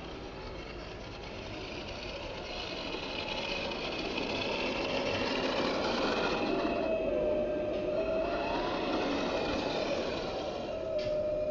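Remote-control M1A2 Abrams model tank driving over gravelly sand. Its electric drive motor and metal gearbox whine, and its metal tracks with rubber pads clatter, growing louder through the first half as it comes close.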